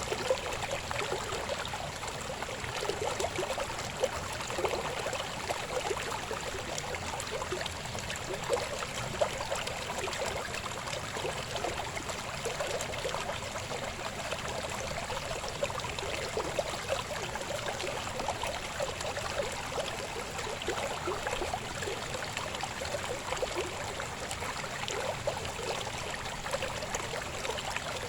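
Shallow river babbling over stones: a steady rush of water with constant small gurgles and splashes.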